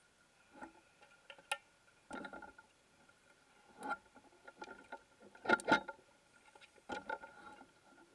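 Underwater clicks and short knocking rattles from diving gear, heard through the camera housing. They come scattered and irregular, with a louder pair of knocks about halfway through, over a faint steady high tone.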